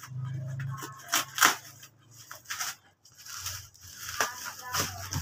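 Scissors cutting through a woven plastic sack wrapped around a parcel, then the sack being torn and pulled off the cardboard box by hand: a series of sharp snips and rips, the loudest about one and a half seconds in.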